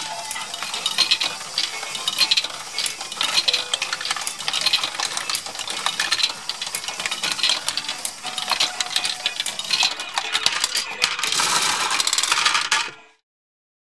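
Lego Great Ball Contraption modules running: small plastic balls clattering and ticking through Lego Technic lifts and tracks in a dense stream of light clicks. The sound cuts off suddenly near the end.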